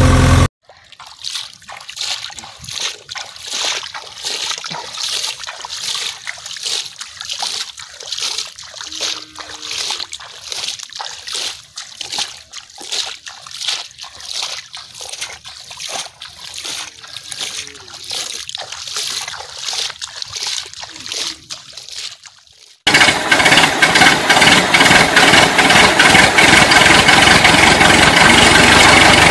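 Water splashing and trickling in irregular bursts as toy vehicles are pushed and rinsed in a shallow muddy puddle. About 23 seconds in, a loud, steady engine idling sound with a constant whine cuts in abruptly, an engine sound effect laid over the toy play.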